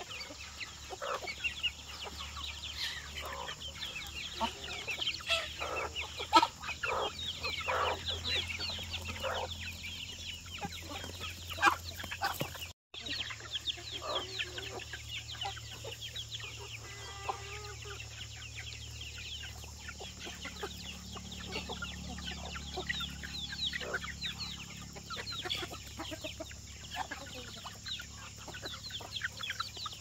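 Domestic chickens clucking and calling, many short high calls in quick succession, with scattered short knocks in the first half. The sound cuts out for an instant a little under halfway.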